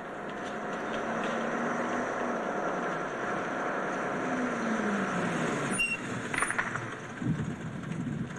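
Truck engine running, its pitch falling as it slows, then a short high squeal about six seconds in and a few low thumps near the end.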